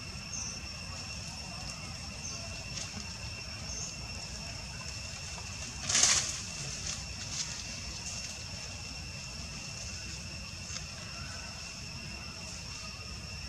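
Outdoor ambience: a steady high-pitched whine with a few faint bird chirps, and one brief loud rustle about six seconds in.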